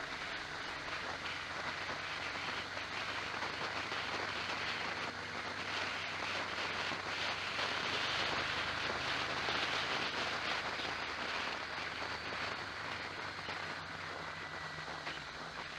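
Onboard sound of a vehicle travelling along the road: a steady hiss of wind and tyre noise that grows to its loudest about halfway through and then eases off, over a low, even engine hum.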